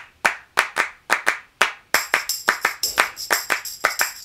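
Intro jingle built on a steady rhythm of handclaps, mostly in quick pairs. About two seconds in, high ringing tones of the music join the claps.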